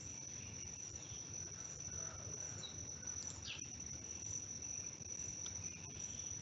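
Faint, steady high-pitched insect chorus over low background hiss, with a few faint clicks.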